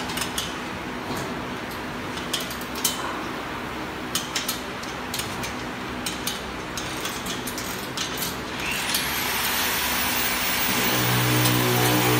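Scattered sharp metal clicks and taps of a hand tool on the elevator's steel side frame while bolts are being worked, over a steady workshop machine noise. About nine seconds in, a hiss rises, and near the end a low, steady machine hum starts.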